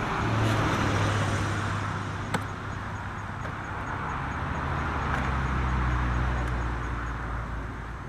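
A motor vehicle's engine running with a steady low hum that drops lower in pitch about five seconds in, under a wash of noise that swells and fades. One sharp click comes a little over two seconds in.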